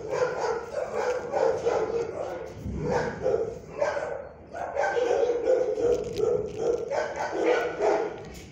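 Dogs barking and yipping over and over in short pitched calls, with a brief lull about four seconds in.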